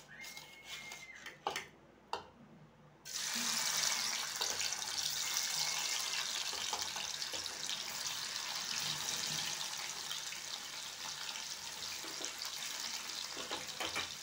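Paneer pieces sizzling as they go into hot mustard oil in a kadai. The sizzle starts suddenly about three seconds in, after a few light clicks, and keeps going, easing a little toward the end.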